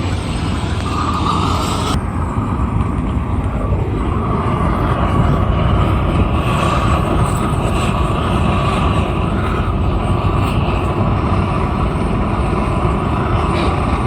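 A motor or engine running steadily, with a steady whine over a low rumble.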